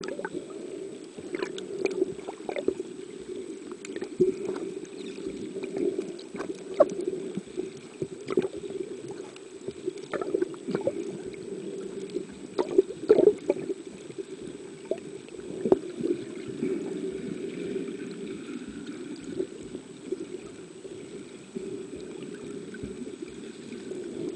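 Muffled underwater ambience picked up by a submerged camera: a steady dull rush of water with scattered sharp clicks and knocks, and a faint thin high whine.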